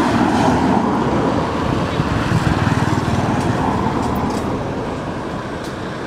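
Road traffic noise: a motor vehicle's engine running close by, somewhat louder in the first half, with voices in the background.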